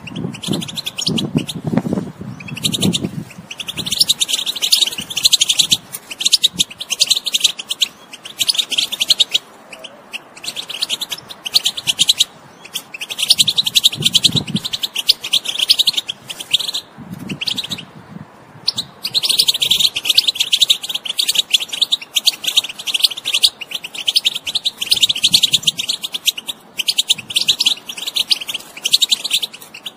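European goldfinch singing: long runs of rapid twittering and trills, broken by short pauses and one longer lull about two-thirds of the way through.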